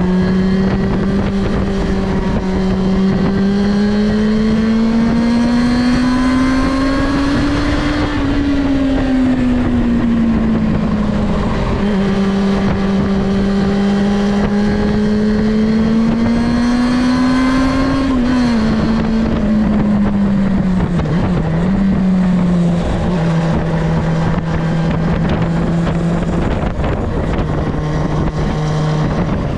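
Yamaha Fazer 6's inline-four engine with its stock exhaust, running steadily under way. The engine note climbs slowly and eases back twice, then drops to a lower, steady note for the last third.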